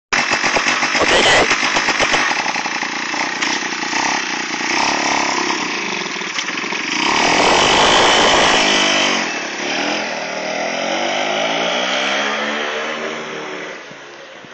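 Yamaha Beluga 80cc scooter engine mounted on a folding bicycle, running and revving. Its pitch climbs to the loudest point about seven to nine seconds in, then falls and rises again, and the engine sound drops away near the end.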